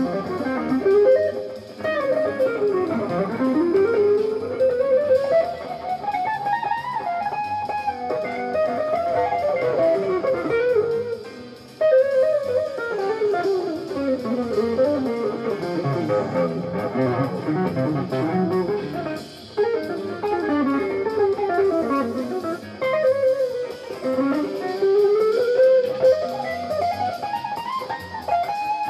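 Electric guitar playing a jazz fusion piece: fast melodic runs that climb and fall again and again, with short breaks about eleven and nineteen seconds in.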